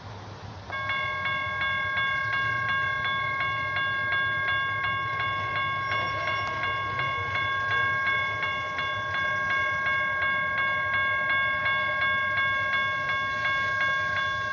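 Railroad grade-crossing warning bell starting up about a second in, then ringing on with quick, even repeated strikes as the crossing signals activate, the warning that a train is approaching.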